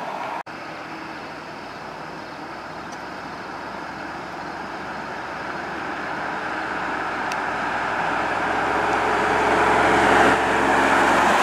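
A convoy of pickup-based fire brush trucks approaching on wet pavement: engine noise and tyre hiss growing steadily louder as the lead truck nears. There is a brief audio dropout about half a second in.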